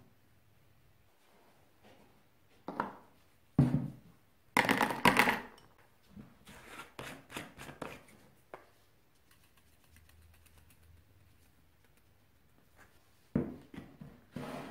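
Thin plastic tubs crinkling and clattering as one is pulled off a nested stack, loudest a few seconds in. Softer knocks and scrapes follow as a plastic bottle is uncapped and handled.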